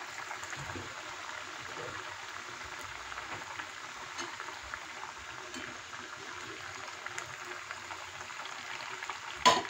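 Parippu vada (lentil fritters) deep-frying in hot coconut oil in a kadai: a steady sizzle and crackle of bubbling oil. A single sharp knock comes near the end.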